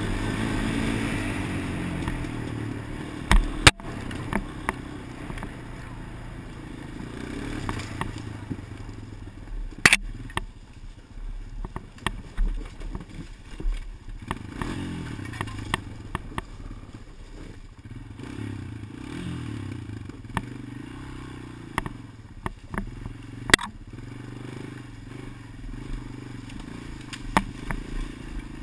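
Sharp clicks at irregular intervals, a few strong ones and several fainter, from a helmet-mounted GoPro camera: a fault in the camera. Beneath them a vehicle engine runs, its pitch wavering up and down.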